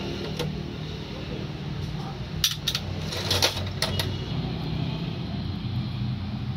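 A handful of sharp little metallic clicks midway through, as fine tweezers touch and lift the small steel plate and pins on a disassembled Denso 2KD common-rail injector held in a vise. A steady low hum runs underneath.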